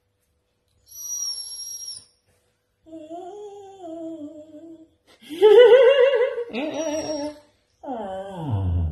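Husky 'talking' in a series of whines and wavering woo-woo howls. The loudest, warbling call comes about five seconds in, and a final one slides down in pitch near the end. A brief, thin, high whistle-like squeal sounds about a second in.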